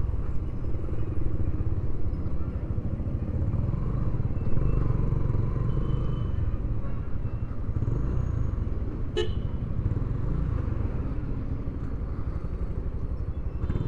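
Yamaha SZ-R motorcycle's single-cylinder engine running at low speed, under a steady low rumble of wind and traffic. A short beep, like a vehicle horn toot, sounds about nine seconds in.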